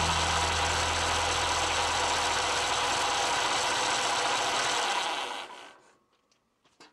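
Massey Ferguson 135 tractor engine running steadily, a low hum under broad mechanical noise, fading out about five and a half seconds in; a few faint clicks follow near the end.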